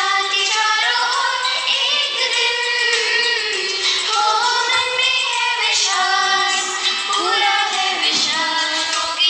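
A woman singing a prayer song in a continuous, held melody, with sustained notes that glide between pitches.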